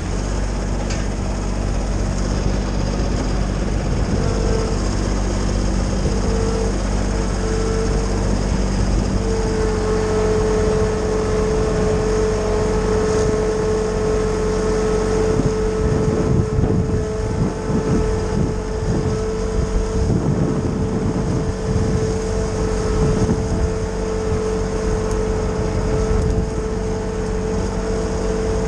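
Kioti subcompact tractor running steadily while driving a Titan wood chipper, with a steady whine that settles in about nine seconds in. Irregular rough grinding stretches come in the middle as pine branches go through the chipper.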